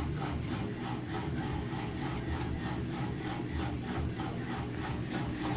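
Mabe 18 kg washing machine in its spin cycle: a steady hum with a fast, even, rhythmic rasping several times a second. This is the abnormal noise it makes while spinning.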